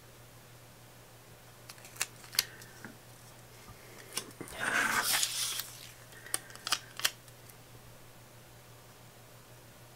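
Paper being handled: a few light clicks and taps of fingers on a planner page, and about a second of paper rustling and sliding near the middle as the page is moved across the cutting mat.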